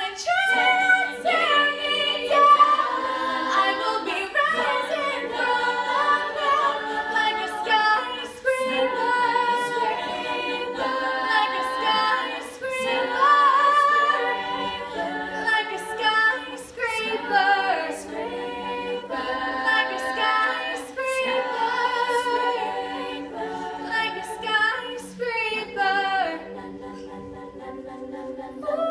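All-female a cappella group singing: a lead voice carries the melody over held chords sung by the rest of the group. The singing drops to a softer passage for the last couple of seconds.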